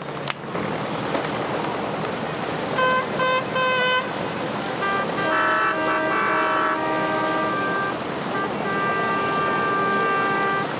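Boat horns sounding over wind and water noise: three short toots, then several horns at different pitches overlapping, then one long blast.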